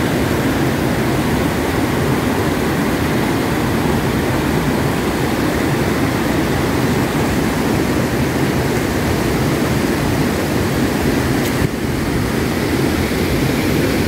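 Steady, loud rushing of river water pouring over a small concrete weir and through rapids, close by, with a brief dip about twelve seconds in.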